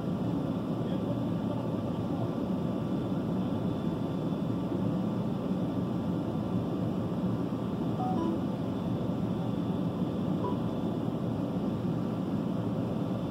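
Steady low drone of idling vehicle engines, heard from inside a parked vehicle.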